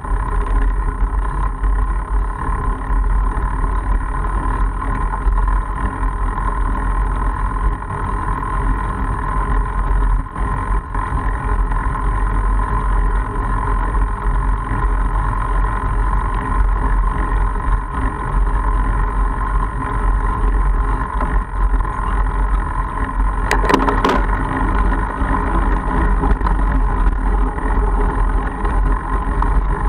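Steady riding noise of a Mongoose Argus fat bike rolling along a gravel road: a continuous low rumble of tyres and wind. There is a brief rattle of clicks about three-quarters of the way through.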